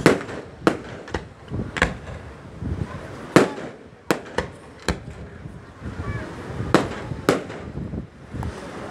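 Aerial fireworks bursting overhead: about a dozen sharp bangs at uneven intervals, the loudest about three and a half seconds in.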